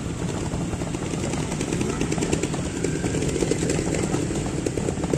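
Trials motorcycle engine running at idle, a steady rapid putter that swells a little toward the end.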